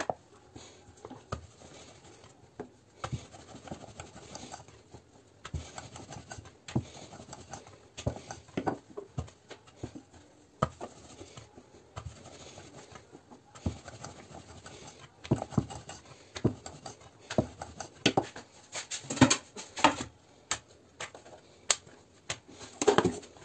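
Wooden rolling pin rolling out puri dough on a round wooden board: irregular light taps, knocks and rubbing of pin against board, with a few louder knocks near the end.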